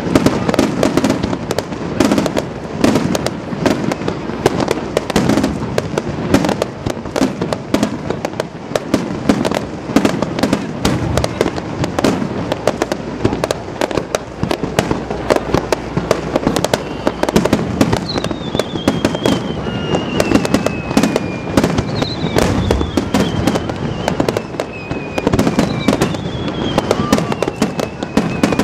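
Aerial fireworks bursting in a rapid, continuous barrage of bangs and crackles. In the second half, three long whistles fall slowly in pitch.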